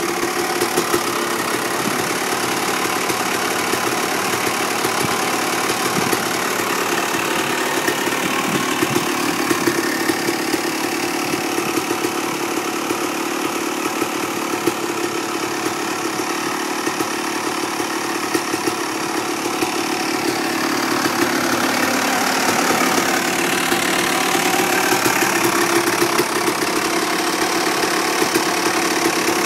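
1996 Honda CR250's two-stroke single-cylinder engine running steadily on its first start after a full rebuild. It gets louder about two-thirds of the way through.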